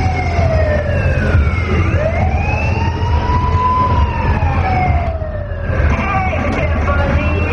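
A siren wailing. Its pitch slides slowly down, then rises and falls again over a few seconds, above a steady low rumble.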